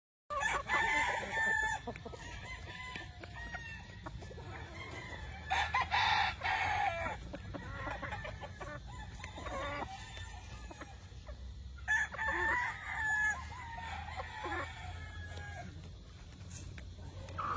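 Gamefowl roosters crowing, with clucking between the crows. The loudest crows come about six seconds in and again about twelve seconds in.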